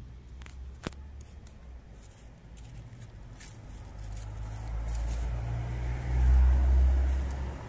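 A motor vehicle passing: a low engine rumble builds from about four seconds in, is loudest near the end, then eases off. A single sharp click comes about a second in.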